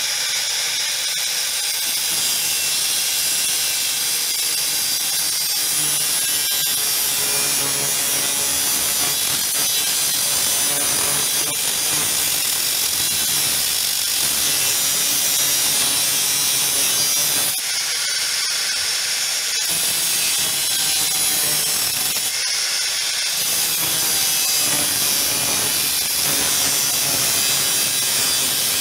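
Electric angle grinder running steadily, its abrasive disc grinding against steel with a loud, high-pitched hiss and motor whine. Twice, after the middle, the sound briefly thins as the load on the disc changes.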